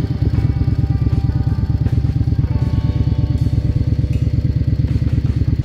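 Yamaha XVS 650 DragStar's V-twin engine running at a steady speed with an even, rapid pulse; the sound cuts in and out abruptly.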